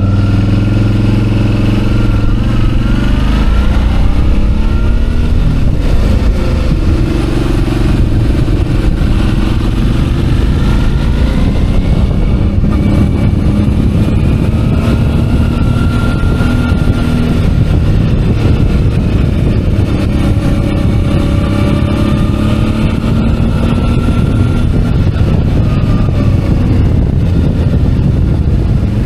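Suzuki DL650 V-Strom's V-twin engine running under way, its note rising and falling as the rider opens and eases the throttle, over a steady rush of wind and road noise.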